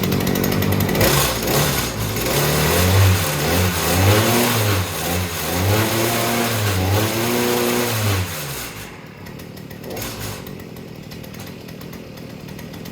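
Viper 43cc two-stroke engine on an Earthquake MC43 cultivator running on its new carburetor, revved up and down several times, then settling to a lower idle about eight seconds in and cutting off near the end.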